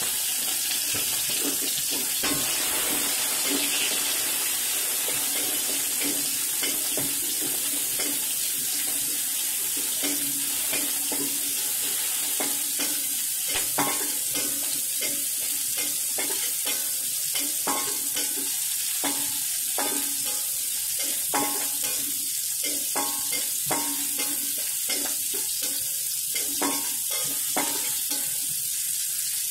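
Sliced chilies and garlic sizzling in hot oil in a metal wok, with a metal spatula scraping and clinking against the wok as they are stirred; the stirring strokes come more often from about ten seconds in.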